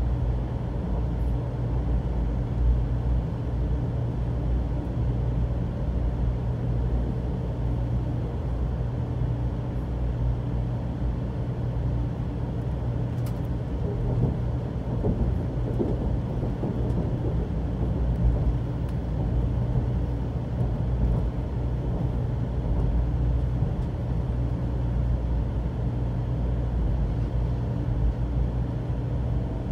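Shinkansen bullet train running, heard from inside the passenger cabin: a steady low rumble of wheels and running gear with a constant low hum, and a brief faint click a little before the middle.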